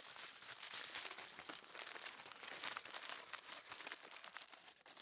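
Campfire coals crackling and sizzling, a steady dense crackle of many small snaps over a hiss.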